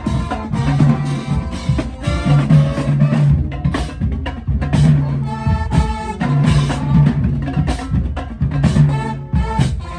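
Music with a steady drum beat and a low bass figure repeating about every second and a quarter.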